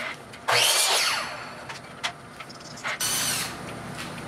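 Metal lathe's VFD-driven spindle motor run in two short bursts, its whine gliding in pitch as it speeds up and slows down. The first burst, about half a second in, is the louder; the second comes about three seconds in.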